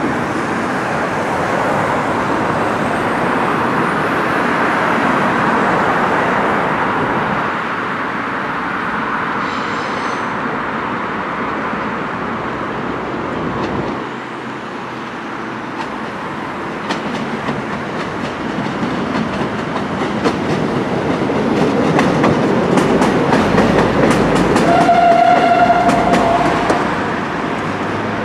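Stadler diesel multiple unit approaching and passing close by, its engine and wheel noise building to a clatter of wheels over the rail joints as it goes under. Near the end the train sounds one short horn blast.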